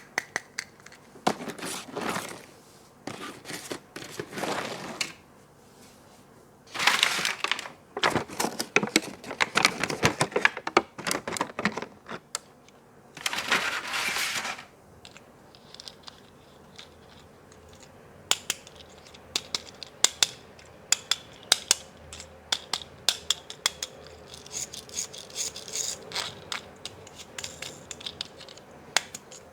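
Toy packaging being handled and opened up close: bursts of crinkling and tearing in the first half, then a run of small, sharp clicks and taps.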